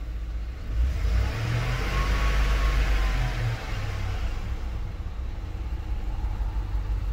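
A Chevy Tahoe's engine running, heard from inside the cab, with a brief rise and fall in pitch about two to three seconds in.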